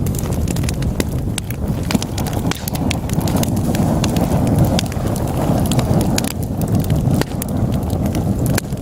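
Wood fire burning in a fireplace: a steady low rumble of flames with many sharp, irregular crackles and pops from the burning logs.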